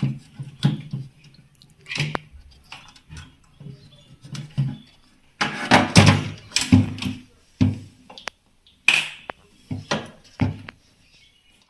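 Irregular clicks, taps and rattles of hands working on a refrigerator thermostat as its wires are reconnected and the part is handled back into its plastic housing, with a louder cluster of knocks about five to seven seconds in.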